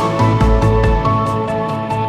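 Soft background music with sustained melodic notes over a low bass.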